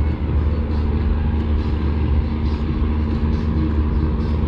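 Ship's diesel engines running steadily: a low drone with a steady hum over it.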